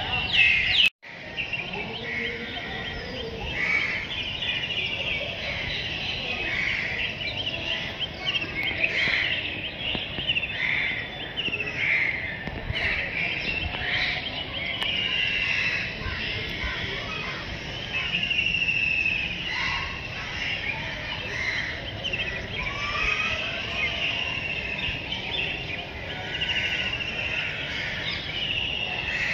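Many birds chirping and calling, overlapping short chirps over steady background noise, with a brief cut in the sound about a second in.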